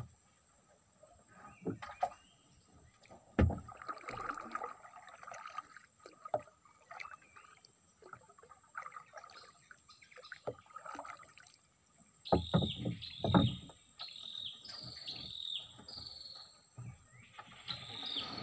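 Wooden paddle strokes with knocks against the wooden hull of a small boat and light water sounds; the loudest knocks come a few seconds in and in a cluster about two-thirds through. In the second half a bird calls a run of about six short falling notes.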